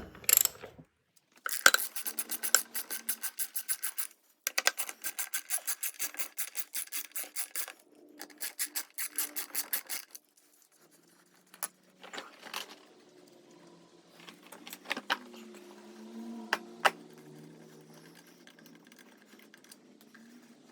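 Hand socket ratchet clicking quickly in three runs as the engine's mounting bolts are backed out, then a few light metal clinks.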